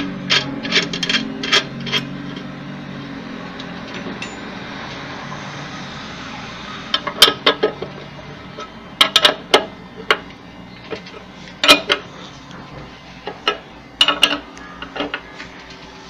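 Sharp metallic clinks and taps of a combination wrench on the nut and drive pulley of a washing machine as the pulley nut is fitted and tightened, coming in irregular clusters.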